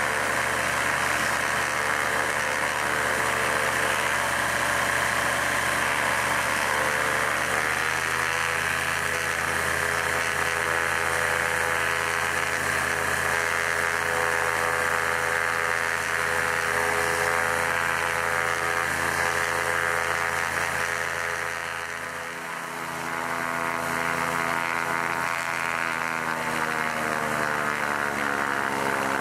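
Rotax 912iS Sport fuel-injected flat-four aircraft engine running at low rpm on the ground, propeller turning. The engine speed rises slightly about eight seconds in, dips briefly a little past twenty seconds, and climbs again near the end.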